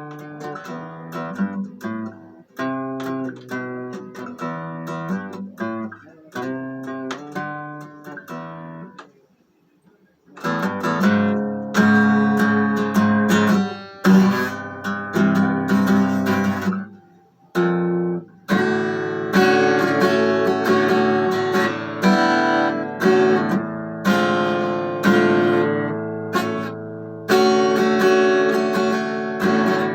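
Solo acoustic guitar playing: single picked notes and broken chords, a pause of about a second, then louder strummed chords for the rest.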